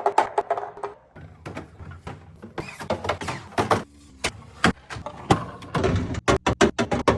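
Containers and food items being handled and set down while restocking a fridge: irregular clicks, knocks and plastic rattles, with a quick series of taps near the end.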